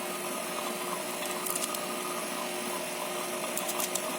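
Steady hum of a running machine, with a few light clicks about a second and a half in and again near the end.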